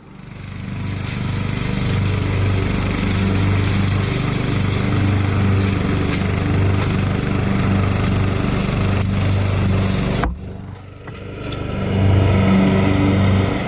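Riding lawn mower engine running steadily, with a sudden dip about ten seconds in before it comes back up louder.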